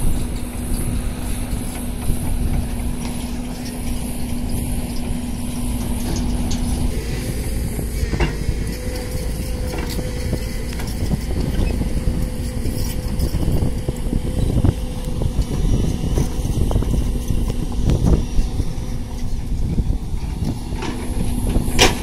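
Heavy diesel dump trucks and an excavator running on an earthworks site, a steady low engine rumble with a faint hum through the first seven seconds and a fainter higher whine for several seconds after. A sharp clank comes near the end.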